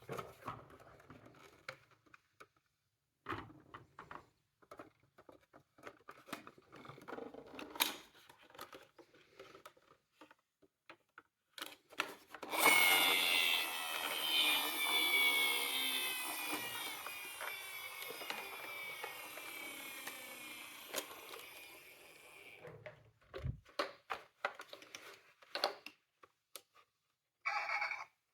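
Miniature toy cars clicking and rattling as they are handled. About halfway through comes a sudden loud whirring whose pitch slowly falls as it fades over some ten seconds, like a toy car's wheels spinning down.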